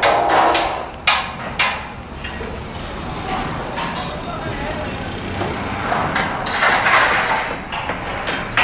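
Hammer blows on formwork: a few sharp knocks at uneven intervals over steady background noise, with voices.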